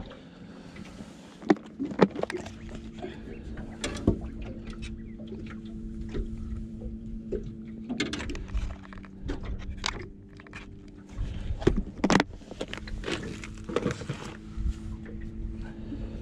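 Clicks and knocks of a clear plastic tackle box being opened and handled while lures are picked out. Behind them runs a steady low motor hum that shifts pitch and drops out a few times.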